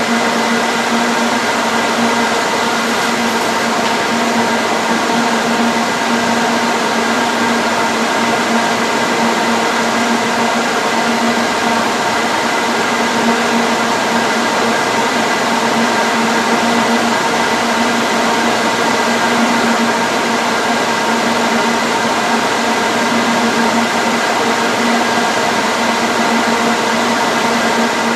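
Running laboratory equipment: a steady whir and hum with several fixed tones over a constant hiss, unchanging throughout.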